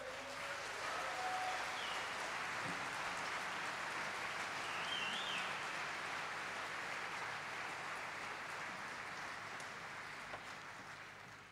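Concert audience applauding after the last song, with a couple of short whistles, the clapping fading away near the end.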